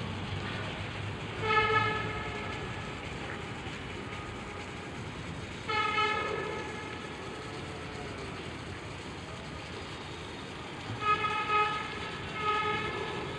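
A horn gives four short blasts a few seconds apart, the last two close together, over a steady background hiss.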